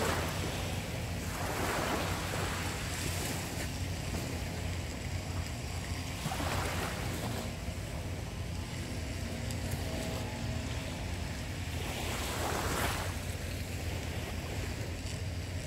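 Small waves washing up on a sandy shore, swelling every few seconds, over a steady low rumble of wind on the microphone.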